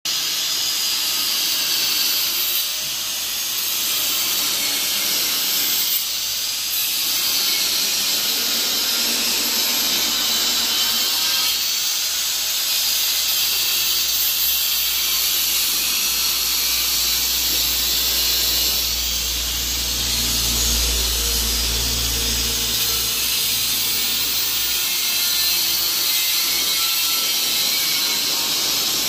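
Handheld angle grinder cutting into a rusty steel cylinder: a steady high-pitched whine and grinding hiss, easing off briefly about three and six seconds in.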